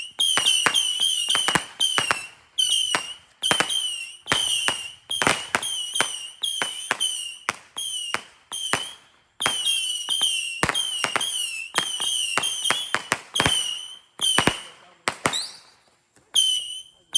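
Whistling fireworks going off in a rapid string: each shot a sharp crack followed by a short, shrill, warbling whistle, about one to two a second, with a brief lull near the end.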